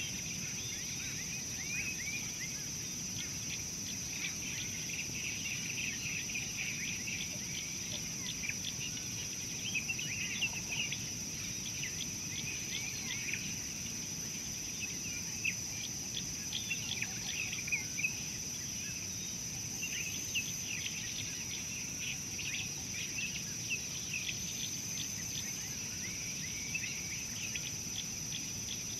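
Bush ambience: a steady high-pitched insect drone, with many short bird chirps and calls scattered over it.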